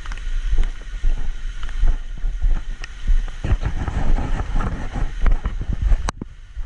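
Wind buffeting and handling noise on a GoPro action camera's microphone: a gusty low rumble with irregular rustles and scrapes, and a sharp click near the end.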